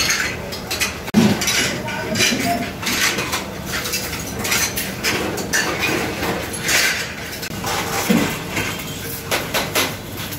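Steel ladles and cups clanking against large steel pots as gravy is scooped and poured, repeated metal clinks over the background chatter of a busy food stall.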